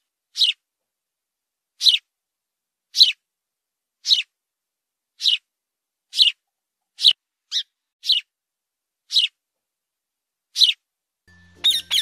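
House sparrow chirping: single short chirps, roughly one a second. Near the end a fast run of squawks from a rose-ringed parakeet begins.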